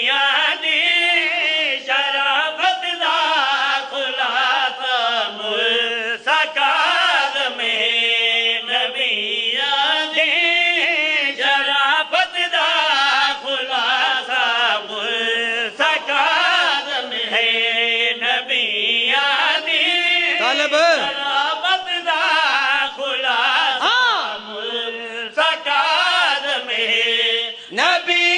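A man's voice chanting a devotional qasida, a praise poem, in a drawn-out melodic recitation with long held notes that bend up and down.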